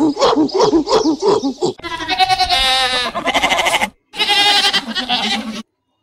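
A quick run of short animal calls, about four a second, breaks off, and a goat gives two long, quavering bleats, the first about two seconds long, the second a little shorter.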